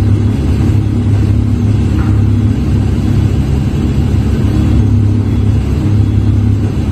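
Forklift engine running steadily with a low, even drone.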